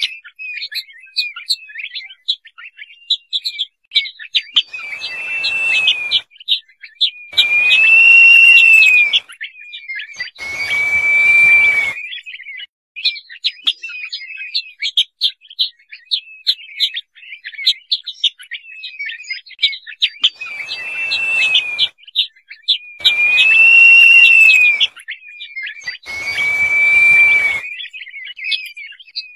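Crested partridge (roul-roul) calling: long whistled notes, each arching up then down, in two groups of three, with rapid short high chirping notes between the groups.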